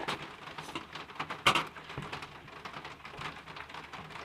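Green slime being handled: faint, irregular sticky crackling and small clicks, with one louder click about a second and a half in.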